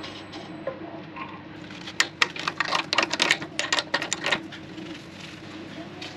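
Chuck key turning in the lathe's Axminster scroll chuck, a rapid run of metallic clicks lasting about two and a half seconds, starting about two seconds in, as the jaws are opened to release the workpiece.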